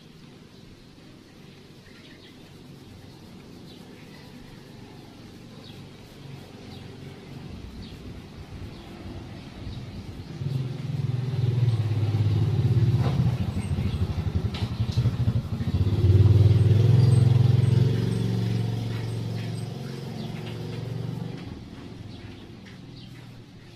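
A motor vehicle's engine going by: a low hum that swells from about a third of the way in, is loudest a little past the middle, then fades toward the end.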